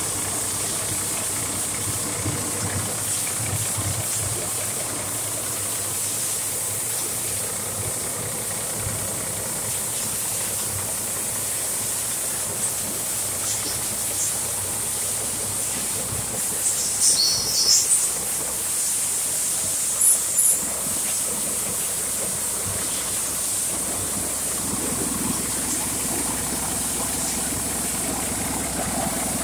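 Caterpillar 3306 10.5-litre turbocharged six-cylinder diesel engine running steadily on a test stand. A few short high-pitched chirps come twice about halfway through.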